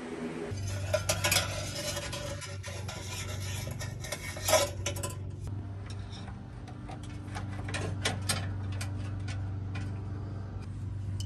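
Scattered light clicks and clinks, the loudest about four and a half seconds in, over a steady low hum that starts about half a second in.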